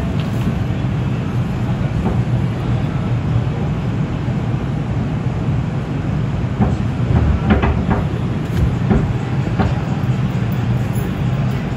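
NYC Subway R142 train running on the rails, heard from on board: a steady, heavy rumble of wheels and running gear, with a few sharp clicks between about seven and ten seconds in.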